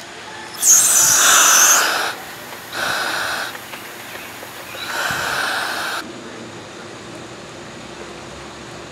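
Air hissing through a surface-supplied diving helmet as the diver breathes in: three breaths about two seconds apart, the first the longest and loudest.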